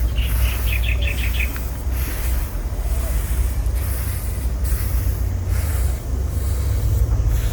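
Drying rice grains being pushed and spread in repeated swishing strokes, over a steady low rumble. A bird's quick trill of about eight chirps comes in the first second and a half.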